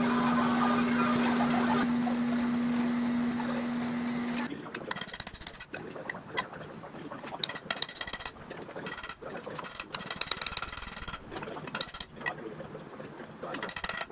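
A machine hum, the drill press motor running, for about the first four seconds, then it cuts off. After that, a hammer strikes a bearing driver again and again, one or two blows a second, pressing a new pilot bearing into the centre of a flathead Ford V8 flywheel.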